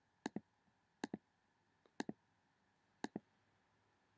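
Computer mouse clicking: quiet double-clicks, each a quick press and release, four times about a second apart, while stepping through presentation slides.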